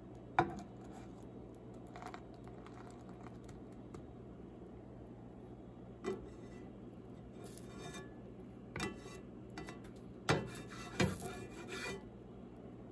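A slotted plastic spatula scraping and knocking against a nonstick frying pan in short strokes, about half a dozen times, over a faint steady hum.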